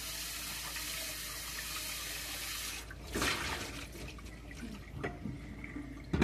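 Kitchen tap running into a nonstick frying pan as it is rinsed by hand. The water stops about three seconds in, followed by a short splash as the pan is tipped and a few light clanks. A sharp knock near the end, the loudest sound, comes as the pan is set down on the stove.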